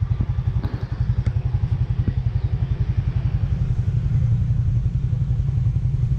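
A small engine running steadily at idle, a fast even low throb, with a few light clicks in the first second.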